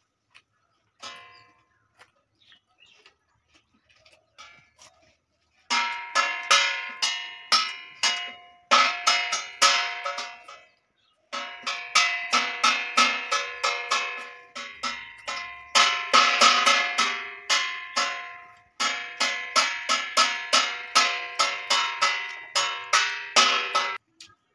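Background music of quick, bell-like struck notes in a steady rhythm, coming in about six seconds in and pausing briefly a few times. Before it, only faint scattered clicks.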